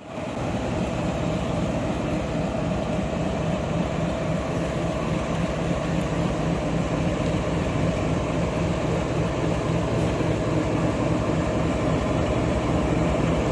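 Steady engine hum of a train running without change, with a low held drone, typical of a diesel locomotive running at idle.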